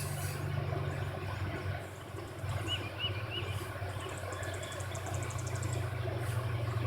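An engine idling with a steady low hum, with three short high chirps about three seconds in and a run of fast faint ticks a little later.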